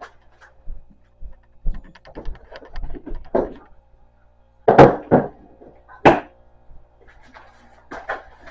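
Unboxed items and packaging being handled and set down: scattered light knocks and rustles, with two louder thuds about five and six seconds in.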